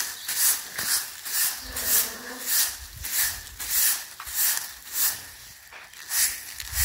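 Steady rhythm of short swishing strokes, a little under two a second.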